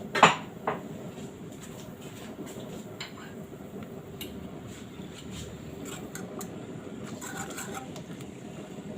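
Kitchen pot and utensils clinking, a sharp clink just after the start and a smaller one soon after, then a steady low hum with a few faint light taps.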